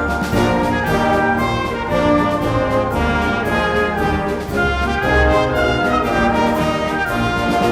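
Orchestral music led by brass (trumpets, trombones and horns) playing loud held chords that change every second or so, with frequent sharp hits throughout.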